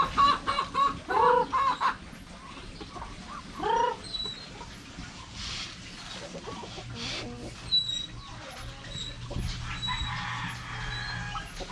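Farmyard poultry clucking: a quick run of loud clucks in the first two seconds, another call about four seconds in, then quieter scattered clucking.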